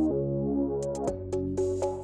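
Background electronic music: held synthesizer chords that change about a second in, with light percussion ticking over them.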